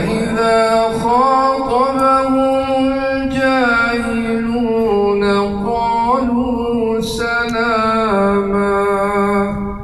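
A man reciting the Quran in a melodic, drawn-out tajwid style: one long chanted phrase of held notes, with the pitch stepping down twice before it ends.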